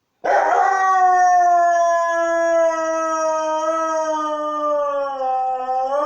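Siberian husky howling: one long unbroken howl that starts just after the beginning, its pitch sinking slowly and lifting slightly near the end.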